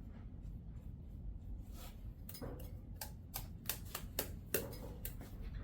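A run of light, irregular clicks and taps, about three or four a second, starting about two seconds in, as of small hard parts or tools being handled.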